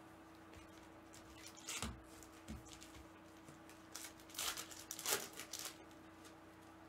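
Foil trading-card pack wrappers crinkling and rustling as they are handled and opened with gloved hands, in a few short bursts, over a faint steady hum.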